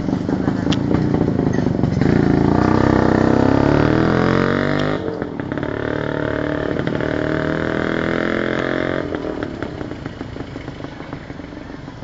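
Motorcycle engine heard from on board, accelerating. Its pitch climbs, drops suddenly about five seconds in at a gear change, and climbs again. About nine seconds in the throttle closes and it runs quieter.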